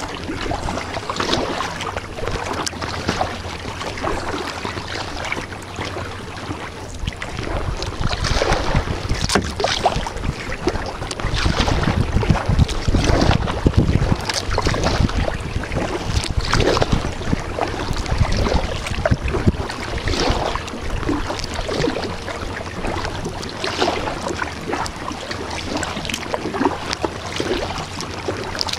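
Kayak paddle strokes splashing in calm water, a splash every second or so, with water lapping at the hull. Wind buffets the microphone with a low rumble, strongest about halfway through.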